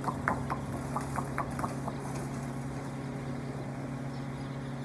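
Broiler chicks peeping: a quick run of short, falling cheeps in the first two seconds or so that then dies away, over a steady low mechanical hum.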